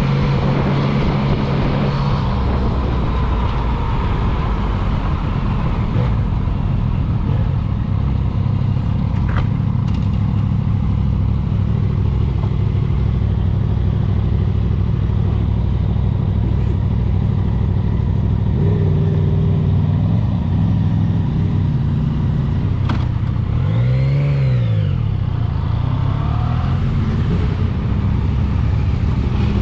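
Motorcycle engine running under way, its pitch stepping with gear changes, with a quick rise and fall in revs past the middle.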